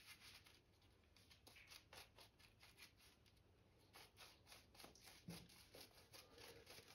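Shaving brush bristles rubbing lather over stubble, a quick series of faint scratchy strokes.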